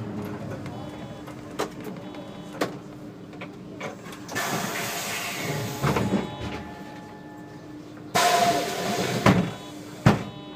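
SOR NB12 City bus standing at a stop with its engine idling in a steady hum, a few clicks, and two long bursts of compressed-air hiss from its pneumatic brakes and doors, the second ending in two knocks as the doors work.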